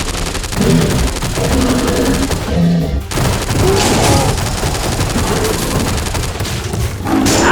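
A rapid, continuous crackling clatter of cartoon action sound effects, over background music.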